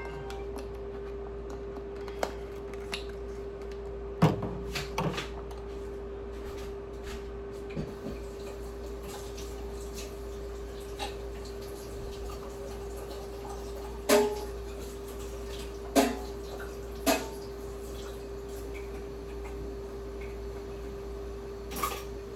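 A steady hum at one pitch runs under a handful of separate sharp knocks and clinks. The loudest come about four seconds in and again around fourteen, sixteen and seventeen seconds in.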